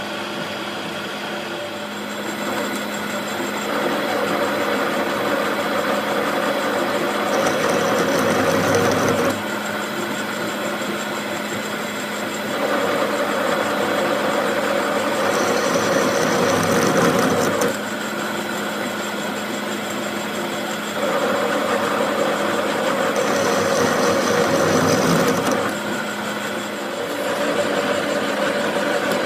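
Workshop machine motor running with a steady hum, growing louder and rougher in spells of about four to six seconds with quieter stretches between.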